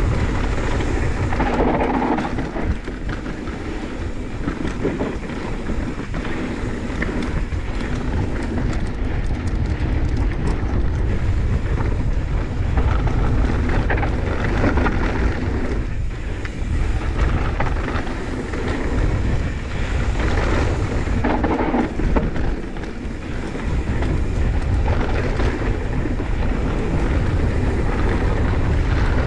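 Wind buffeting the helmet camera's microphone in a heavy low rumble over the rough noise of mountain bike tyres rolling fast on a dry, rocky dirt trail, with frequent short knocks as the bike goes over rough ground.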